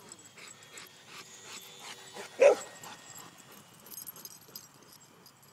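A dog barks once, short and loud, about two and a half seconds in, over faint rustling and scuffling.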